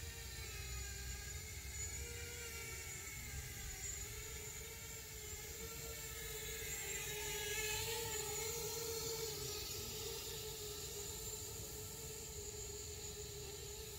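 A 5-inch FPV quadcopter's motors and propellers whining steadily, the pitch wavering up and down with throttle and getting a little louder about halfway through, over a low rumble.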